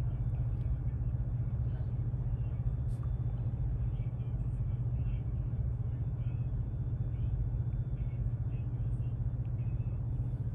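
Steady low rumble that holds at an even level throughout, with a few faint light ticks above it.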